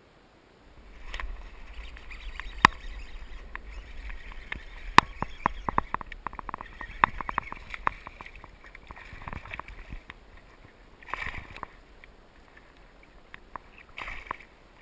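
A hooked bass splashing at the water's surface beside a kayak, with many sharp clicks and knocks from about a second in, and a short splash near the end as the fish is grabbed by hand at the side of the kayak.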